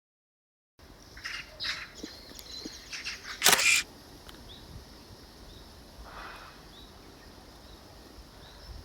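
Film camera clicking: a few small mechanical clicks, then a loud shutter release about three and a half seconds in. Faint bird chirps sound in the background.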